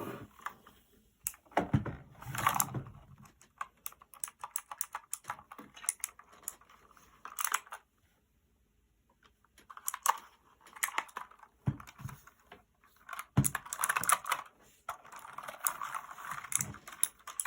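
One Up G300 mechanical keyboard with clicky Outemu Blue switches being typed on in bursts of rapid key clicks, with a pause of about a second midway and a few heavier thumps among the keystrokes.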